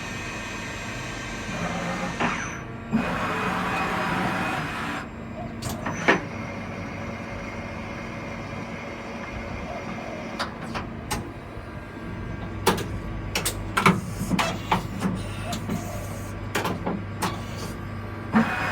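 Hamai 3VS CNC milling machine running with a steady hum. A few seconds in comes a burst of hissing, and in the second half a string of sharp clicks and clunks, with a deeper hum joining about two-thirds of the way through.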